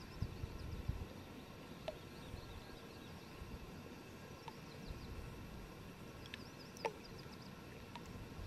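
Quiet lakeshore ambience: a low rumble of wind with faint high bird chirps in short clusters. Two brief sharper calls come about two and seven seconds in.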